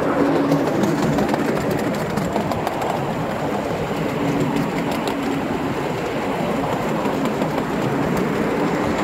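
Miniature ride-on railway train running along its track, the coaches' wheels rattling steadily over the rails with scattered small clicks, and a faint tone that comes and goes.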